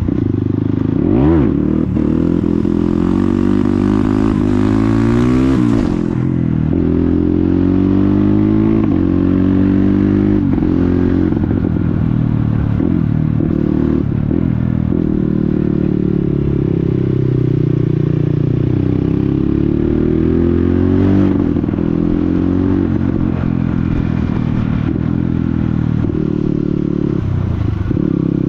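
Motorcycle with a loud exhaust under way, its engine note rising and falling with the throttle. There is a quick blip about a second in, then a long climb in revs that drops off suddenly around six seconds in, and after that steadier running with smaller rises and falls.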